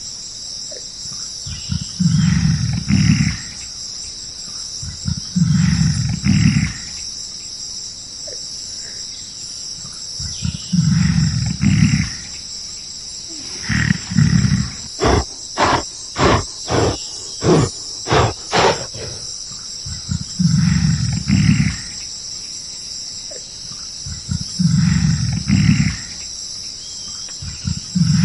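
A large animal's deep, roar-like grunts, often in pairs, repeating every three to four seconds, with a quick run of about eight sharper calls around the middle. A steady high chirring of insects runs underneath.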